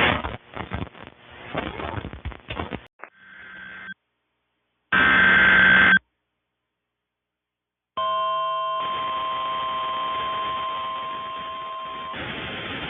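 Crackling radio static with dropouts, then a loud one-second burst of EAS/SAME digital header data. About eight seconds in a steady, single-pitched NOAA Weather Radio warning alarm tone starts and holds, the signal that an emergency weather warning is about to be read.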